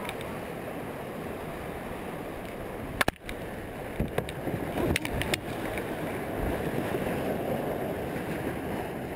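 Rushing whitewater close to the microphone, a steady churning, with one sharp knock about three seconds in and a few smaller knocks a second or two later.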